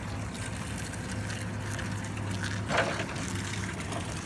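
2005 Yale ERP040 electric forklift driving and turning on concrete, with a steady hum, and a single knock about three seconds in.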